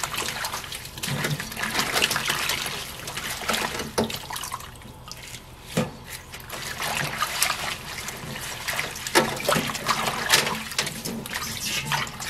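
Garlic chives being swished and rubbed by hand in a steel bowl of water: water splashing and sloshing, with small clicks and knocks. It goes quieter for a moment about five seconds in.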